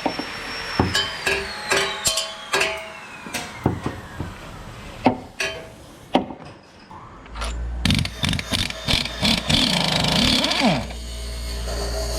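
Hand and power tools at work: a run of metal knocks and clinks, then from about seven seconds in a low steady hum with more clicks, and near the end a power tool spinning up and down.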